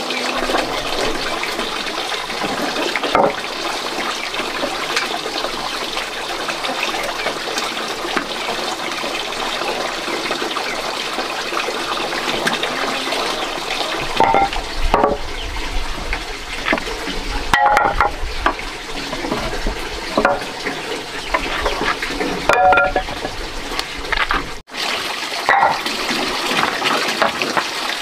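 Steady rush of running water, with a few short knocks and clatters in the second half.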